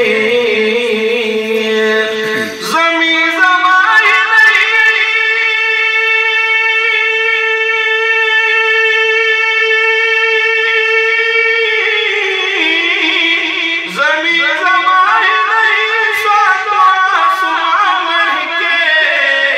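A man singing a naat (devotional poem) solo, holding one long high note for about nine seconds before moving into a wavering, ornamented melody.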